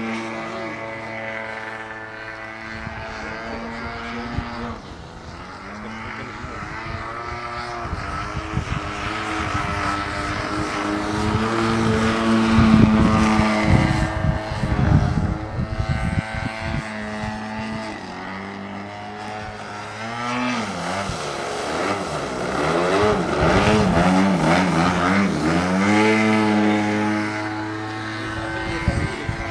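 O.S. 33 cc single-cylinder two-stroke gasoline engine with an MTW canister muffler, driving the propeller of a large aerobatic model airplane in flight. It holds a steady note, eases off, then throttles up to its loudest about halfway through, and for several seconds near the end its pitch wobbles rapidly up and down before settling again.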